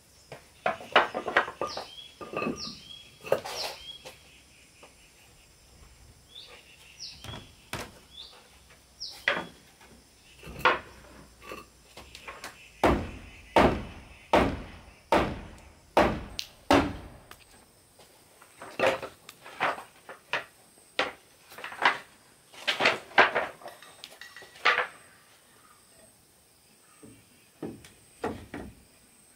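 Hammer blows and knocks on wooden timbers as a log wall is fitted together: irregular strikes at first, then a run of heavy blows about one a second in the middle, and lighter taps near the end.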